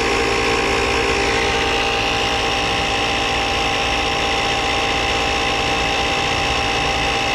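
Portable electric tire inflator's compressor running steadily as it pumps air into a flat tire.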